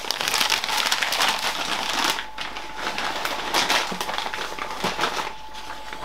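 Packaging crinkling and rustling as hands rummage through a cardboard box of food packages, in two busy spells with a quieter stretch between them.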